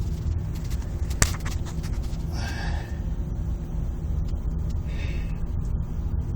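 A motor hums steadily at a low pitch, with a sharp click about a second in and two short breathy noises, at about two and a half and five seconds in.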